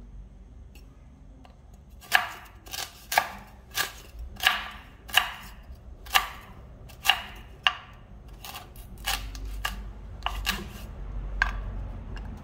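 A knife chopping hard, ripe noni fruit into slices. There are about fifteen sharp, uneven strikes, beginning about two seconds in and stopping shortly before the end.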